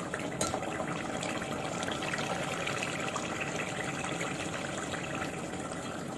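Chicken and potato gravy bubbling and sizzling steadily in an aluminium pot on a gas stove as it is fried down, its water almost cooked off. A single light clink of the steel ladle about half a second in.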